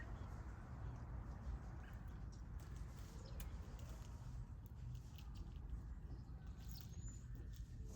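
Faint outdoor ambience: scattered short bird chirps and high clicks over a steady low rumble, with one short rising whistle about seven seconds in.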